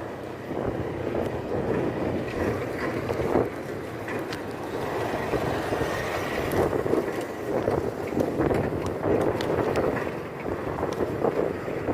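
Noise of a vehicle in motion, a steady fluctuating rumble with wind buffeting the microphone.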